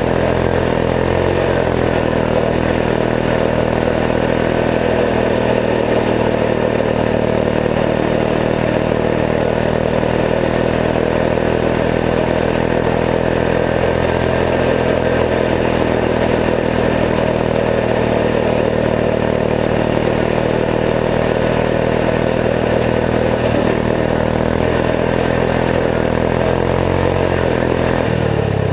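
Turbocharged 14 hp single-cylinder Kohler engine of a Gilson garden tractor running steadily under way. Its pitch drops near the end as the engine slows.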